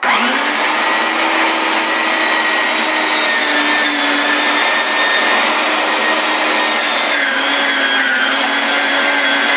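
Electric meat grinder switched on and spinning up at once, then running with a steady motor whine as red bell peppers are pushed through it. The pitch dips slightly about seven seconds in.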